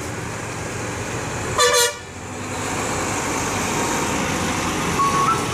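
Volvo multi-axle coach's diesel engine running as it pulls slowly past, close by, louder after the first two seconds. A short, loud horn blast comes about one and a half seconds in.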